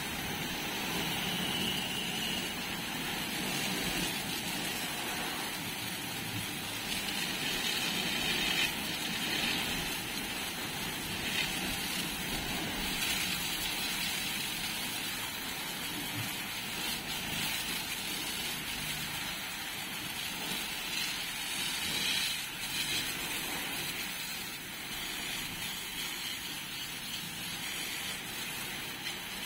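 High-pressure water jet from a pressure-washer lance blasting mud off a steel backhoe bucket: a steady spraying hiss that swells and dips as the jet sweeps across the metal.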